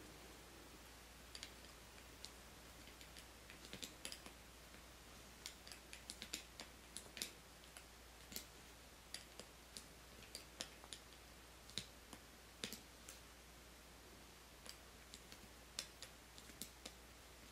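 Faint, irregular light clicks of a metal loom hook against the plastic pegs of a round knitting loom as loops are lifted over the pegs to knit off a row.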